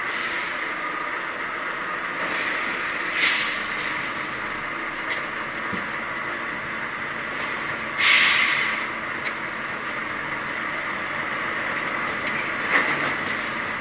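Articulated lorry's diesel engine running steadily, heard from inside the cab. There are two short, loud hisses of air, one about three seconds in and a louder one about eight seconds in.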